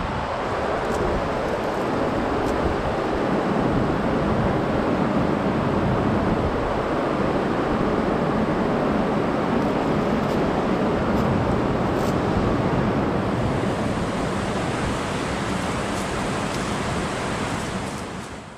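A rocky mountain river rushing over stones: a steady, even rush of water that fades out near the end.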